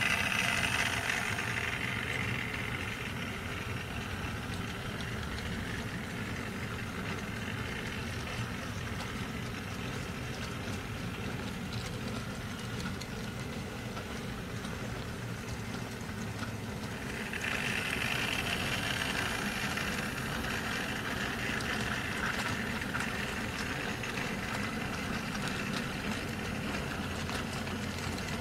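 Model goods train of Lowmac flat wagons running along the layout's track: a steady mechanical running and rolling noise, louder at the start and again from about two-thirds in.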